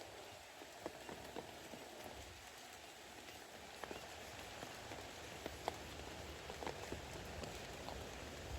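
Steady rain falling, with scattered separate drops ticking sharply close by.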